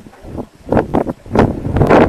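Wind buffeting the microphone in loud, irregular gusts.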